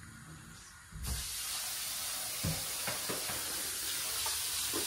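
Kitchen tap turned on about a second in, water running steadily into the sink as soaked rice is rinsed in a bowl, with a few light knocks of the bowl.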